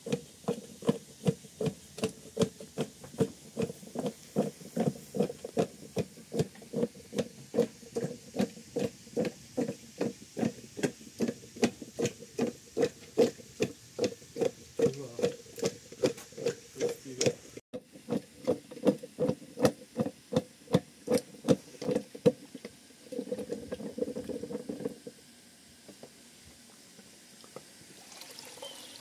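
A wooden stick plunged up and down inside a plastic jug of milky liquid, a regular hollow knock about two to three times a second. It stops about three quarters of the way through, followed by a short rushing noise.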